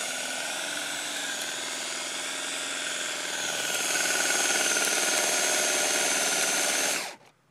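DeWalt XRP 18-volt cordless drill running at full speed, spinning a winch drum that reels in a glider's launch line: a steady motor whine that grows louder about four seconds in and cuts off abruptly near the end.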